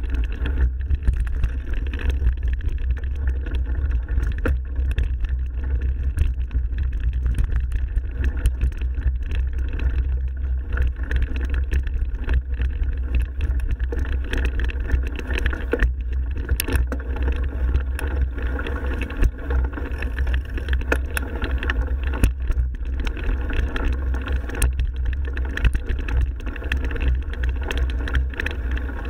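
Mountain bike riding along a forest trail, heard from a camera on the bike or rider: a steady low rumble of tyres and wind on the microphone, with scattered knocks and rattles as the bike goes over bumps.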